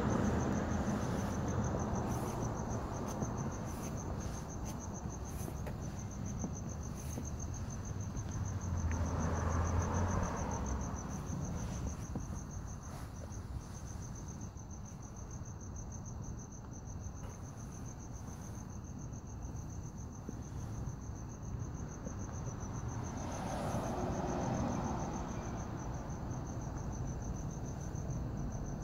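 Crickets chirping in a steady, rapid high-pitched trill, with passing road traffic swelling twice, about ten seconds in and again near the end.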